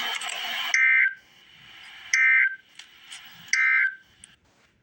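Emergency Alert System end-of-message data tones: three short, loud bursts of the warbling digital screech that closes an EAS alert, about a second and a half apart. Before the first burst a loud hiss cuts off suddenly.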